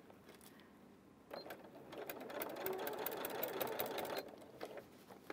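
Electric sewing machine stitching through fabric: it starts about a second in, runs with rapid, even needle strokes for about three seconds, then stops, followed by a few light clicks.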